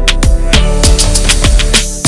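Background music with a steady beat: electronic-style track with thumping kick drums and crisp hi-hats over sustained synth notes.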